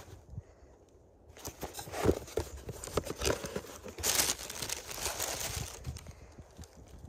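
Cardboard shoebox being handled and opened, with a series of short soft knocks, then tissue paper crinkling loudly about four seconds in as it is pulled back from the shoe, rustling on more softly for a couple of seconds.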